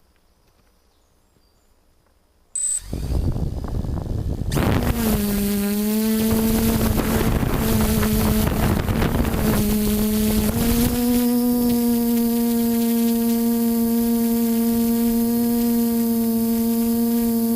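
TBS Discovery quadcopter's electric motors and propellers: a short high beep, then the motors start with a burst of noise about two and a half seconds in and settle into a steady buzzing hum.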